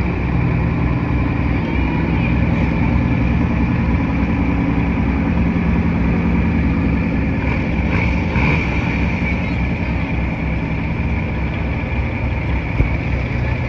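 Diesel semi-truck engine idling steadily, with a single sharp tick near the end.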